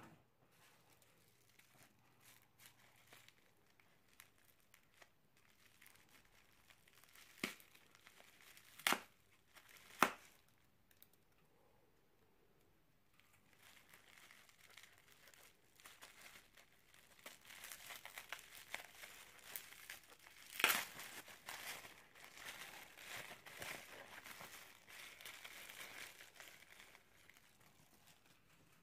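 Plastic bubble wrap being unwrapped and handled, crinkling and rustling. A few sharp snaps come about a third of the way in, then a longer spell of dense crinkling with one louder crack in it.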